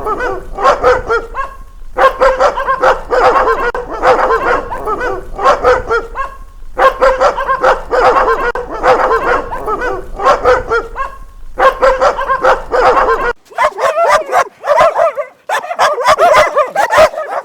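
A pack of dogs barking loudly and angrily together, rapid overlapping barks with a few brief breaks. About two-thirds of the way through, the background hum drops out as another barking track begins.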